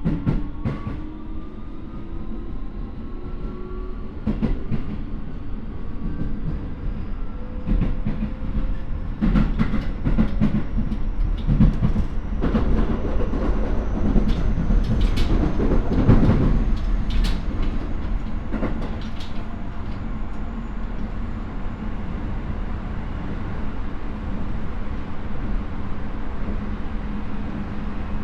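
Running sound from inside a Keio 9000 series electric train, with the motor and its Hitachi IGBT inverter whining and rising in pitch as the train gathers speed. Through the middle stretch the wheels knock over rail joints in quick clusters, then the ride settles into a steady rumble.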